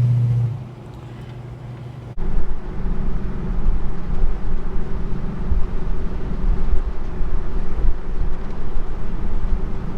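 Car on the move: engine drone and low road rumble with no talking. A sharp click about two seconds in is followed by a much louder, steady low rumble.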